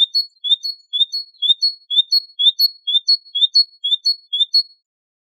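Great tit singing its two-note 'teacher-teacher' song: a lower rising note then a higher one, repeated about ten times at roughly two phrases a second, stopping shortly before the end.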